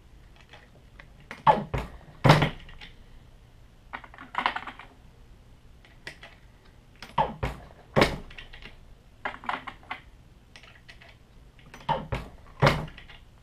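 Brass .44 Magnum cases clicking against the metal shell holder and ram of a single-stage reloading press as each one is set in, belled in the expander die and pulled out, with clinks as cases go back into the loading block. Sharp clicks come in small groups, the loudest in pairs about every five seconds.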